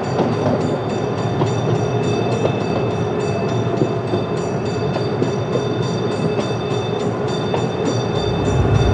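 Miniature passenger train running along its track, with a steady whine and a light clicking of the wheels about four times a second. A deeper low rumble builds near the end.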